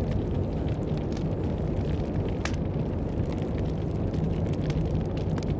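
Campfire crackling with scattered small pops and one sharper pop about halfway through, over a steady low rumble of blizzard wind.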